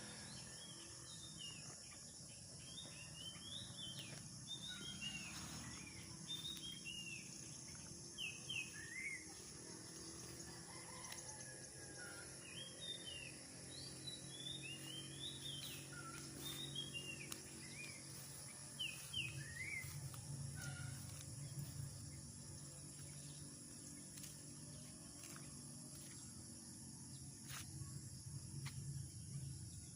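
Small birds chirping in short, scattered notes over a steady high-pitched drone of crickets, with a low background rumble.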